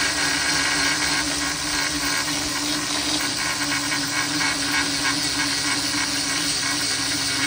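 Handheld grinder with a 3.5-inch diamond grinding wheel running steadily, grinding down the worn top of a dull carbide-tipped forestry mulcher tooth held in a vise. A steady motor hum with hiss, without letting up.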